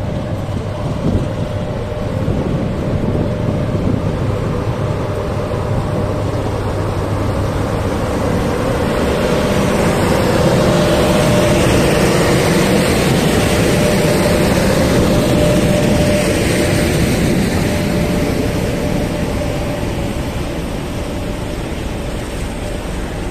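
ЭП1М electric locomotives, coupled together and running light without a train, passing close by: a steady drone with a hum and a whine, growing to its loudest about halfway through as the units go past, then easing off.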